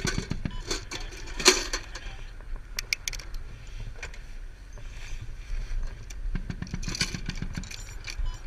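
Metal clicks and clanks of an M2 .50 calibre machine gun being reloaded: the ammunition can set on its mount and a linked belt of cartridges laid into the open feed tray. A vehicle's engine rumbles steadily underneath, with a brief rapid low rattle about six seconds in.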